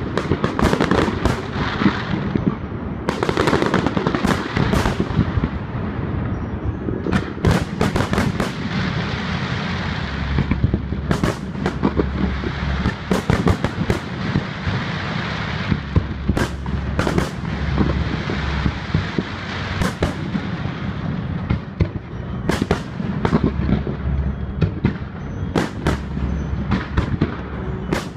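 Fireworks display: a dense, continuous run of bangs and sharp cracks from shells bursting overhead, over a steady crackling hiss.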